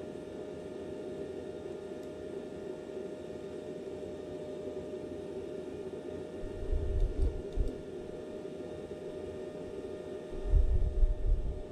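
Steady hum of a semi-automatic welder's cooling fan running, with no arc crackle, and a few low thuds in the second half.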